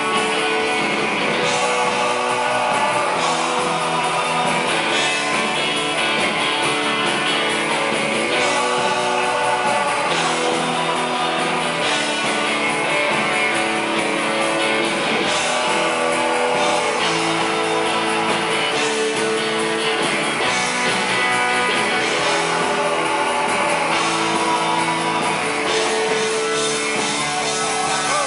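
Live rock band playing, with electric guitars, a drum kit and a lead singer's vocals.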